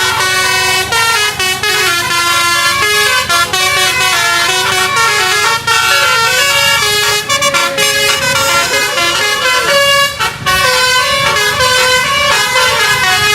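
A bus's basuri (telolet) musical horn playing a fast tune, its notes stepping to new pitches several times a second, with some notes sounding together.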